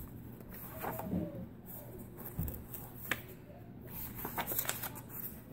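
Paper pages of a softcover workbook being turned by hand, rustling, with several sharp flicks of page edges, a cluster of them near the end.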